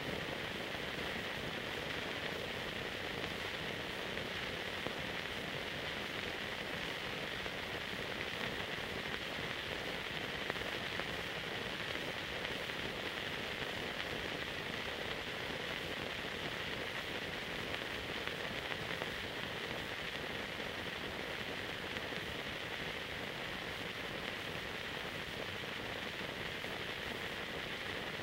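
Steady hiss of an old film transfer with no soundtrack: even background noise without speech, music or any distinct event.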